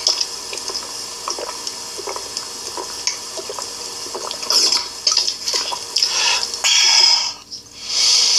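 Bottled water running and splashing, with small clicks and handling noises and louder rushes of water near the end.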